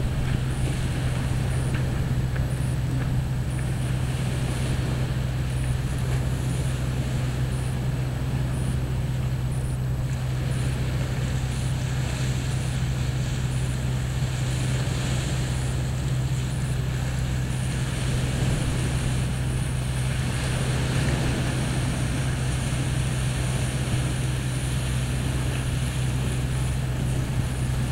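Small waves breaking and washing up a sandy beach, swelling now and then, under a steady low rumble of wind on the microphone.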